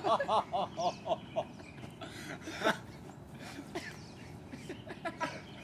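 A man's rapid string of short, high-pitched vocal sounds, about five a second, dying away in the first second and a half, from a man just kicked in the groin. A single short sharp sound comes about two and a half seconds in, then only faint scattered noises.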